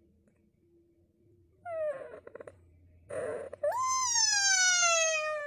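A cat meowing: a short call about a second and a half in, then a long drawn-out meow that rises quickly and slides slowly down in pitch for nearly two seconds.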